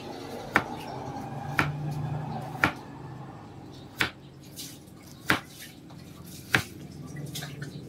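Kitchen knife chopping a vegetable on a plastic cutting board: six sharp knocks, roughly one a second, over a faint low hum.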